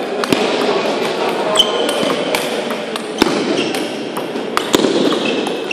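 Table tennis rally: the ball clicks sharply off the rackets and the table, a strike every half-second to second, over the steady hum of a busy sports hall.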